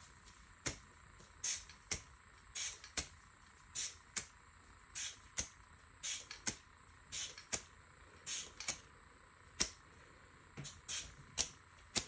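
Aerosol spray-paint can sputtering white paint in short spurts to fleck stars onto the painting: brief hisses and clicks, often in pairs, about one or two a second.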